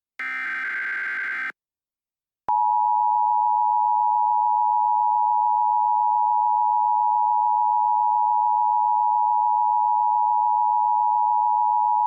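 Emergency Alert System header and attention signal. First comes the last SAME data burst, a raspy warbling digital screech lasting about a second. Then, after a short pause, the EAS two-tone attention signal sounds, a steady harsh beep held for about ten seconds before cutting off.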